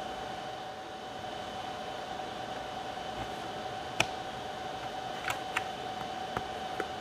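Several sharp clicks and taps from a laptop being handled, over a steady hum with a constant whine. The loudest click comes about four seconds in, and a few lighter ones follow near the end.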